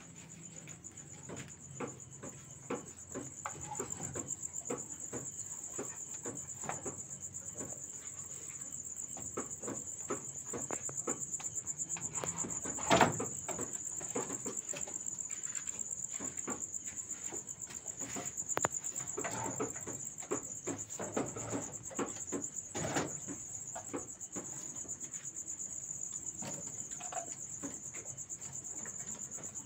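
Crickets trilling steadily at a high pitch, with scattered knocks and clatter from wooden cages and a feeding drawer being handled; a sharp knock about 13 seconds in is the loudest sound.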